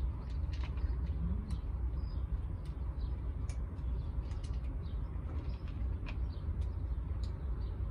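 Street-side outdoor ambience: a steady low rumble with frequent short, high ticks and chirps scattered through it.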